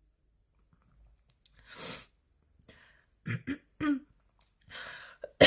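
A woman coughing in a fit. After a quiet moment comes a noisy breath, then three short coughs in quick succession, another breath, and the start of a loud, hard cough at the very end.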